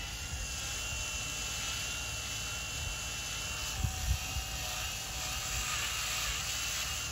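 Power drill running steadily with a high whine, its oiled bit drilling into a metal rigging terminal on a wire shroud. A couple of low bumps come about four seconds in.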